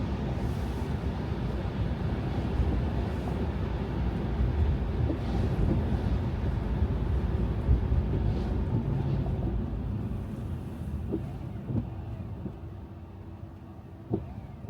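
A car driving on snow-covered roads: a steady low rumble of tyres and engine, which grows quieter after about ten seconds, with a few faint knocks near the end.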